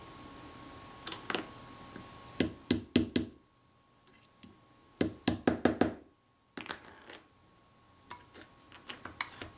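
Quick clusters of light, sharp metallic clicks and taps as a pin punch and small steel parts are worked against a Braun Paxette camera body to free its tension pin, with near silence between the clusters.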